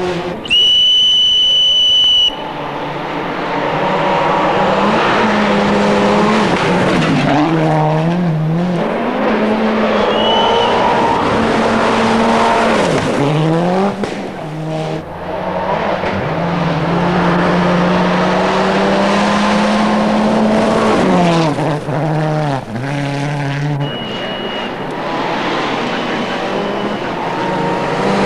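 Mitsubishi Lancer WRC's turbocharged four-cylinder rally engine revving hard over several passes, its pitch climbing and dropping again and again through gear changes. Near the start a loud steady high tone sounds for about two seconds.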